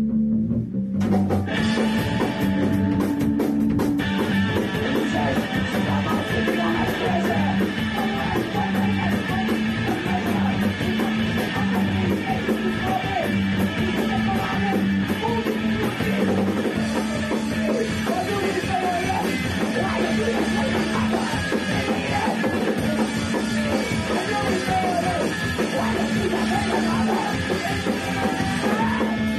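Punk band playing live in a rehearsal room: a repeating electric guitar riff, with the drum kit and cymbals coming in about a second in, and a woman singing over the band.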